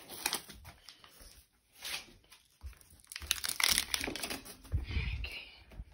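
Irregular crinkling and rustling with scattered clicks, from plastic wrapping or the phone itself being handled close to the microphone, with a brief low rumble about five seconds in.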